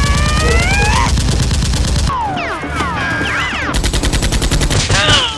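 Automatic gunfire sound effect: two long bursts of rapid shots, about a second and a half apart, with sliding tones rising and falling over them.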